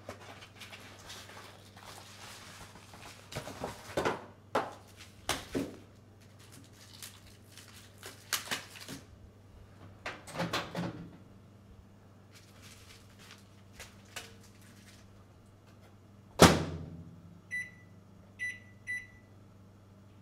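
Rustling and crinkling of a cardboard food box and its tray, then a microwave oven's door clunking shut about three-quarters of the way in, the loudest sound here. Three short high keypad beeps follow near the end as the cook time is entered, over a low steady hum.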